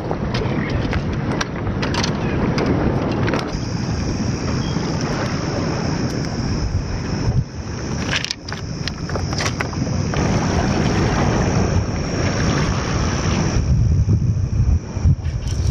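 Wind buffeting the microphone: a loud, rough rumble that rises and falls, with a few sharp clicks. A thin, steady high-pitched tone comes in about three and a half seconds in.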